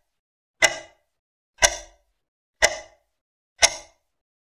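Countdown timer sound effect: a sharp tick with a short ring-out, once a second, four times, marking the time left to answer.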